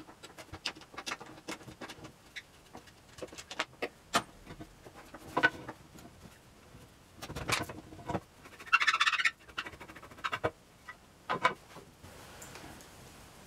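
Hand work on a wooden chair: irregular light clicks and knocks of tools and wooden parts being handled, with a short rasping scrape about nine seconds in and a few louder knocks.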